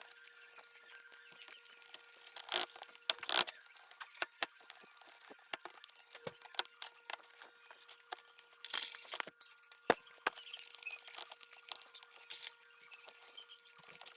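Irregular small clicks, taps and scrapes from tools and small phone parts being handled, with a few longer scraping stretches, over a faint steady hum.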